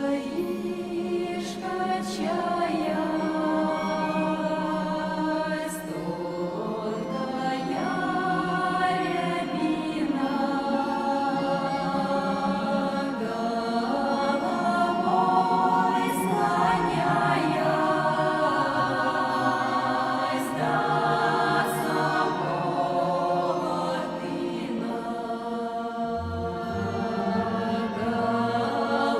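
Background music: a choir singing in sustained, slow-moving voices, with a low accompaniment entering near the end.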